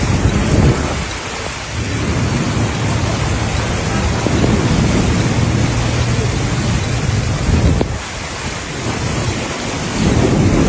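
Torrential rain pouring down as a dense, loud hiss, with a low rumble underneath; it eases briefly about two seconds in and again near eight seconds.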